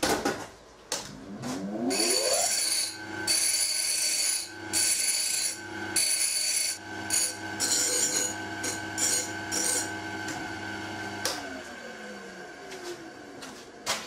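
An electric motor winds up about a second in, runs steadily with scraping and rasping on metal over it, and winds down from about eleven seconds.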